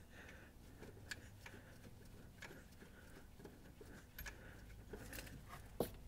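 Faint, scattered metallic clicks and taps as a 13 mm alternator mounting bolt is wiggled into the lower mount by hand to catch its threads, with one sharper click near the end.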